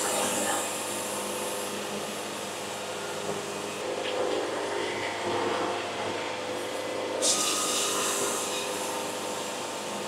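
Wood-Mizer LT70 band sawmill cutting a board from a cant: a steady machine hum under the hiss of the blade in the wood. The high hiss eases off from about four seconds in and comes back sharply about seven seconds in.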